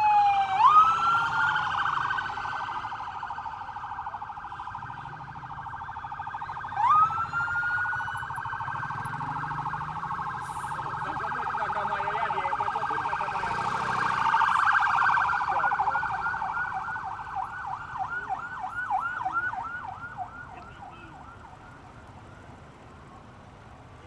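Motorcade escort siren sounding. It sweeps up into a rapid warble, sweeps up again about 7 seconds in, then breaks into fast yelps, about four or five a second, before fading away a few seconds before the end.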